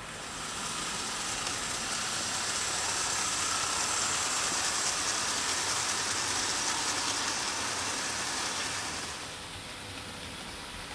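OO gauge model train passing close by: a steady hiss of the coaches' wheels running on the rails that swells over the first second, holds, and fades away about nine seconds in.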